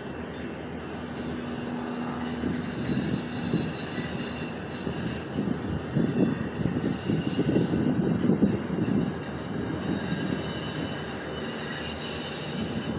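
Distant engine rumble with a steady hum early on, swelling into a louder, uneven rumble in the middle.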